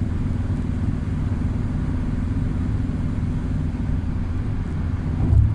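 Steady low rumble of road and engine noise heard inside a moving vehicle's cabin, with a brief low thump about five seconds in.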